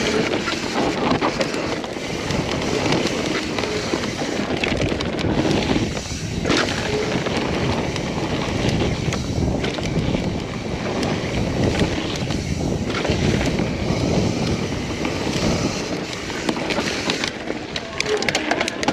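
Mountain bike riding down dirt singletrack: tyres rolling over dirt and roots, the bike rattling and clicking over bumps, with wind rushing on the microphone.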